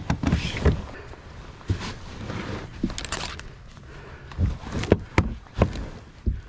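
Footsteps through shallow marsh mud and dry marsh grass, the stems rustling and swishing against the person pushing through them, with irregular dull thuds.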